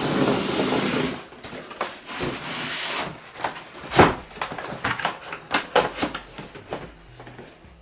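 A large cardboard box being closed and handled: a rubbing, sliding hiss for about three seconds, then a series of knocks and taps as it is turned and set upright, the loudest knock about four seconds in.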